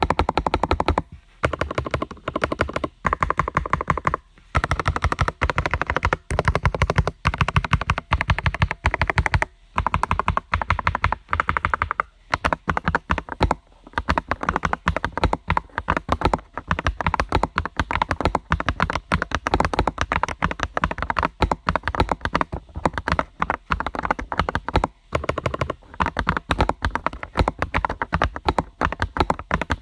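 Typing on a modded Akko ACR 81 mechanical keyboard: acrylic case, lubed Akko Rose Red linear switches, PBT keycaps, a taped PCB and lubed, clipped stabilizers. A dense, steady run of keystrokes broken by a few short pauses.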